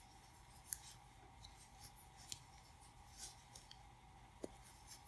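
Near silence, with a few faint ticks and soft scratchy rustles of a metal crochet hook working worsted-weight yarn during single crochet stitches, over a faint steady hum.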